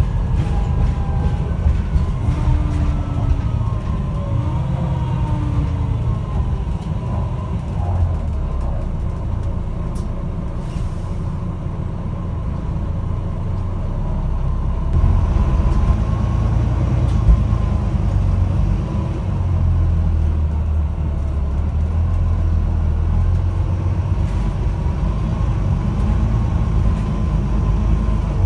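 A Volvo B9TL double-decker bus heard from inside while under way: its engine and driveline give a steady low groaning rumble. Whining tones slide up and down in the first several seconds, and the rumble grows louder about halfway through.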